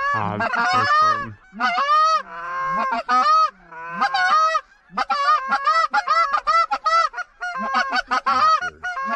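Hunters' goose calls blown in a fast, steady run of short honks and clucks, with a brief pause about halfway through.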